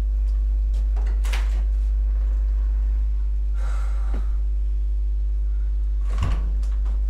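A steady low hum with faint steady tones over it, broken by a few soft knocks, the plainest about six seconds in, and a brief rustle a little before.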